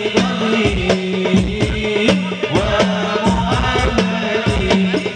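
Group of men singing sholawat into microphones with a hadrah frame-drum ensemble, amplified through a PA sound system. The drums keep a steady rhythm of sharp slaps over deep bass thumps, under the sung melody.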